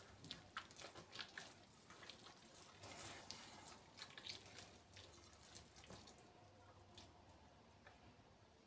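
Faint wet squelching and small clicks of a hand squeezing and mixing soft butter, sugar and milk dough in a stainless steel bowl, thinning out after about six seconds.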